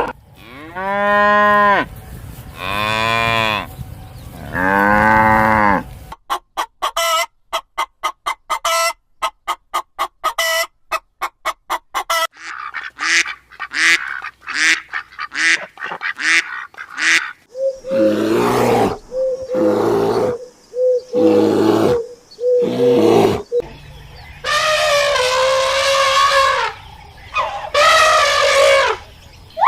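A series of different animal calls one after another: three long pitched calls, then a rapid run of short pulses, then shorter repeated calls and a long call near the end.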